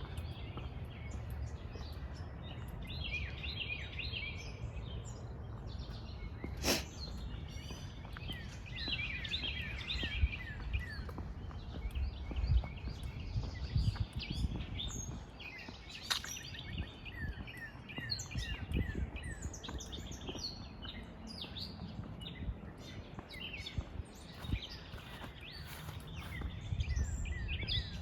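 Several wild birds chirping and singing, with short chirps and trills scattered throughout over a steady low rumble. Two sharp clicks stand out, about seven and about sixteen seconds in.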